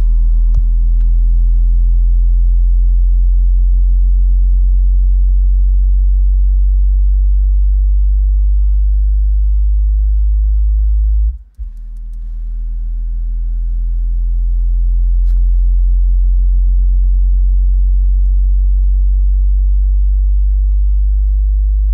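Single car-audio subwoofer playing a loud, low sine-tone test sweep through the truck cab. The sweep is used to find the box's peak frequency, which the meter shows near 47 Hz. The tone cuts out briefly about halfway, then comes back and builds to full level again.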